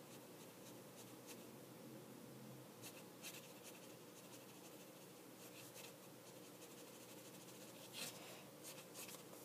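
Faint scratching of a Copic colorless blender marker's nib stroking across paper: a few short strokes over near silence, the most audible about eight seconds in.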